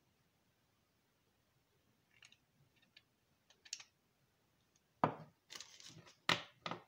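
A graphite spinning-reel spool being handled: a few faint clicks, then sharp knocks as it is set down on a wooden table, with a brief rustle of a plastic bag between the knocks.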